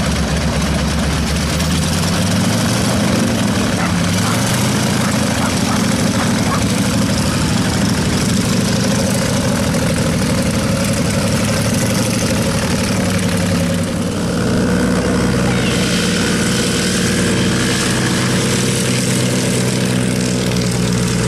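Aero L-60 Brigadýr's propeller engine idling, then running as the aeroplane taxis away over the grass; the engine note changes about fourteen seconds in.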